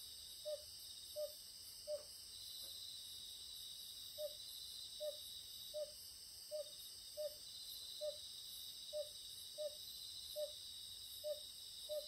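Oriental fire-bellied toad repeating a short, low call about every three quarters of a second, with a brief pause a few seconds in. Behind it, a steady chorus of crickets and other night insects.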